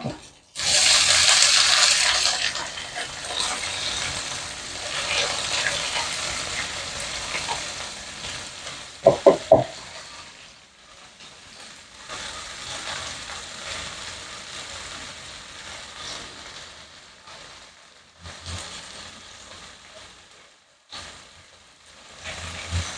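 Kangkong (water spinach) hitting hot oil with ham and garlic in a frying pan, sizzling loudly at first and then settling to a softer sizzle as it is stirred with a wooden spatula. Three short knocks come about nine seconds in.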